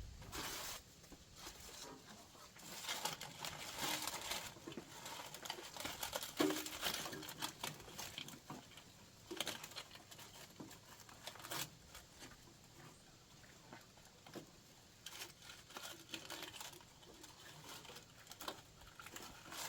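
Hands working around a riding mower's deck belt and pulleys: irregular rustling, scraping and light clicks of metal and rubber. The work is to pull off a stretched belt.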